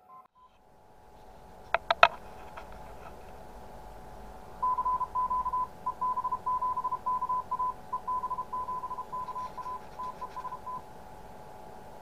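Morse code (CW) received on an amateur radio: a single beep-like tone keyed in dots and dashes for about six seconds, spelling out the callsign EB7KA calling 'test'. It follows two or three sharp clicks about two seconds in, which are the loudest sounds.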